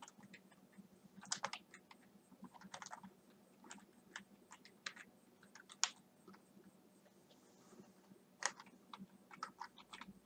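Faint typing on a computer keyboard: scattered keystrokes in short irregular runs with pauses between them.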